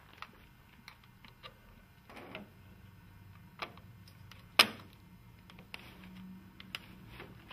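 Tilt-and-turn window hardware being handled on a uPVC window sash: scattered small clicks and knocks, a brief scrape about two seconds in, and one sharp, loud click about four and a half seconds in, over a low steady hum.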